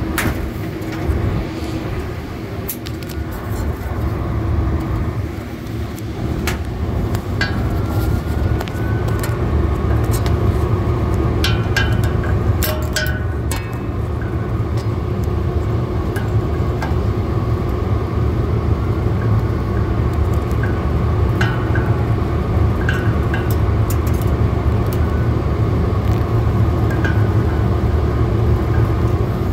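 Steady low rumble and hum of the refrigeration rack's condenser machinery still running, with scattered short metallic clicks of a driver working the screws of a condenser fan motor's electrical cover.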